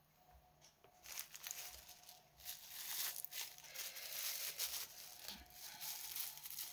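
Plastic packaging crinkling and rustling as it is handled, with many small crackles, starting about a second in.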